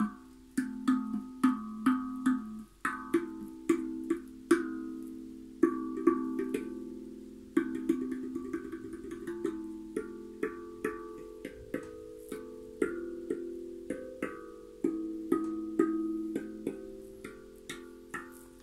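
Guda Freezbee steel tongue drum played with the fingertips: a loose, unhurried run of struck notes, about two a second, each ringing on and overlapping the next.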